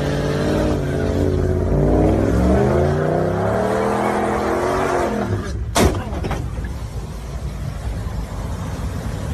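Pickup truck engine revving up and down while the truck spins donuts. A single sharp knock sounds a little before six seconds in, after which the engine note fades into a rougher noise.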